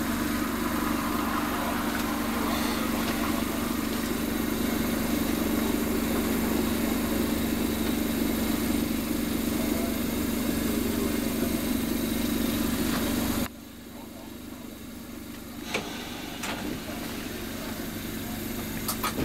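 Vintage narrow-gauge electric train running, heard from aboard: a steady hum over a rolling rumble. It cuts off suddenly about two-thirds of the way through, leaving a quieter rolling sound with a few clicks.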